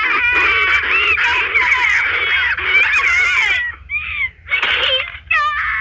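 Harsh, high-pitched animal-like screeching, many cries overlapping and bending up and down in pitch, thinning to a few separate cries in the last two seconds.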